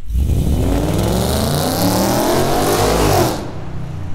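2017 Ford Mustang's 5.0-litre V8, with a full 3-inch stainless steel Pacemaker exhaust and four-into-one headers, accelerating hard past. The exhaust note climbs in pitch through the revs, then falls and fades as the car goes by about three seconds in.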